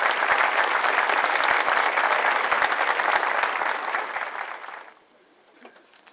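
Crowd applauding: dense clapping from many hands that dies away about five seconds in.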